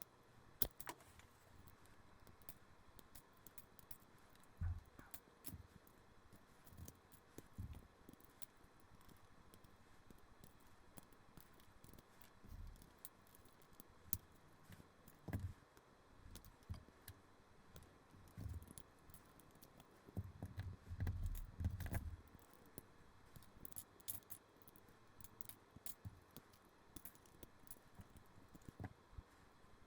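Small plastic LEGO bricks clicking, rattling and knocking as a model is pulled apart by hand, in scattered bursts with a busier run of clatter about two-thirds of the way through.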